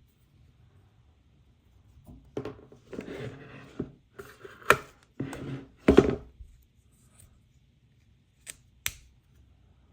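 Toy packaging being handled and opened: a few seconds of rustling and scraping, with sharp snaps or clicks, two of them close together near the end.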